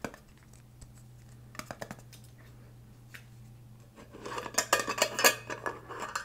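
Close-miked hands handling and tapping unboxed items: a few scattered light clicks, then about two seconds of busy tapping and scratching near the end.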